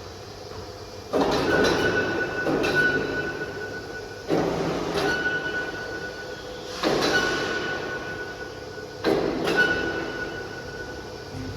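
CIMS1325 CNC router at work: a steady high spindle whine, with bursts of rushing cutting noise that start sharply every two to three seconds and fade away.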